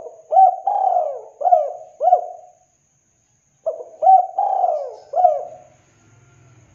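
Spotted dove cooing: two phrases of several notes each, about three and a half seconds apart.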